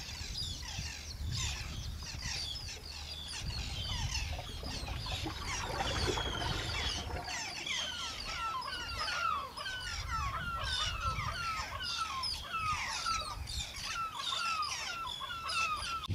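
Several birds calling and chirping at once. In the second half a run of short falling calls repeats two or three times a second. A low rumble runs beneath.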